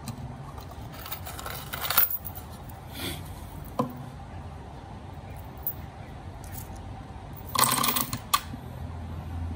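Small metal pieces clinking together in a hand, in two short jingling bursts, one about a second in and one near the end, with a couple of single clicks between them.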